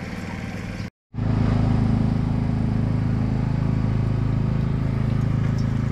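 Small engine running steadily at a constant speed. It drops out briefly about a second in, then runs on louder.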